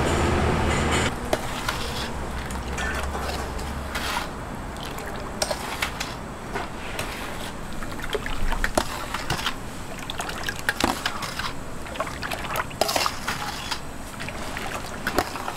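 Kitchen work: irregular sharp knocks and clatter with some wet sloshing. A low rumble stops about a second in.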